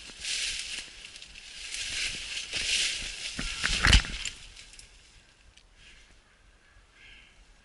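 Brambles and dry leaves rustling and scraping against clothing as a hunter pushes through thick undergrowth, in repeated swells. A sharp knock comes about four seconds in. After that the rustling dies down to quiet.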